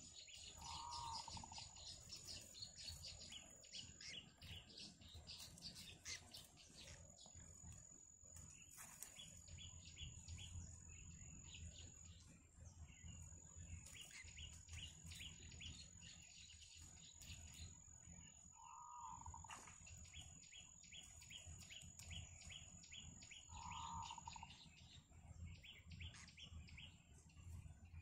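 Yellow bittern chicks calling from the nest, faint runs of rapid chirps, with three short lower calls. A steady high-pitched whine and a low rumble sit underneath.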